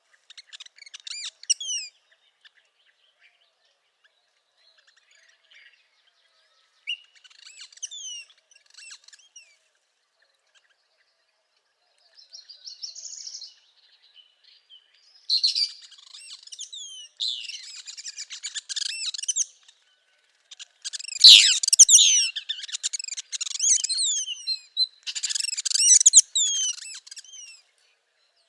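Northern parula singing: high, quick phrases of short sweeping notes. They come in scattered bursts at first, then run almost without break and louder through the second half.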